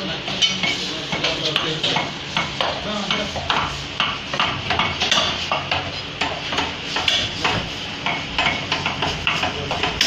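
A butcher's cleaver chopping meat on a wooden block, knocking again and again at about two strikes a second, amid the clatter and voices of a busy meat stall.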